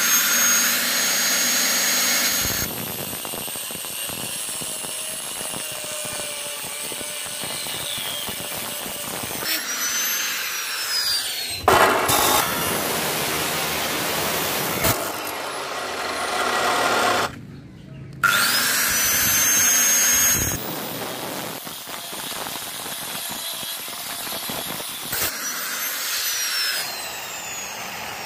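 Electric power tools running in several short cuts: a high-speed motor whines up to speed, runs, and winds down, more than once.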